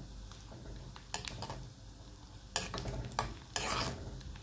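Cashew nuts frying in ghee in a hot pan with a low sizzle, as a spoon stirs them and scrapes the pan in several short strokes.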